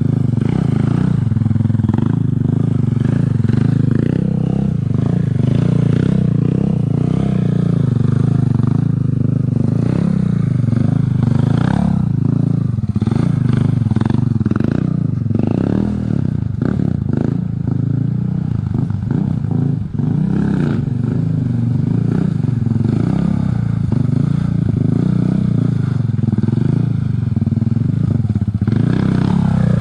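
Small motorcycle engine running and revving as the bike is held up on its back wheel through a series of wheelies, with mechanical clatter. There is a short dip about twenty seconds in.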